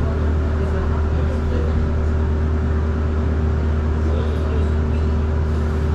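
Steady cabin noise inside an Irizar ie tram battery-electric bus on the move: a constant low hum with a few steady tones over an even road and ride noise.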